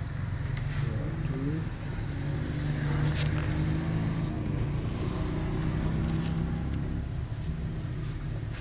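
Steady low mechanical hum, like a motor running, with a single sharp click about three seconds in.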